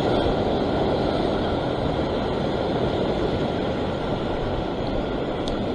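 Sea surf washing over a rocky shore ledge: a steady rushing noise with no breaks.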